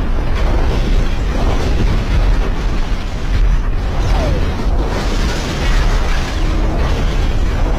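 Explosions of parked military jet aircraft on an airfield. The blasts run together into a continuous deep rumble, with no clearly separate bangs.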